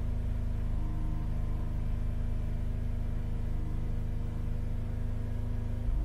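Holden Captiva's 3.2-litre V6 running at raised, held revs (about 2,500 to 2,800 rpm), heard from inside the cabin. It is running badly, with misfires logged on cylinders 2, 4 and 6. It gets louder near the end.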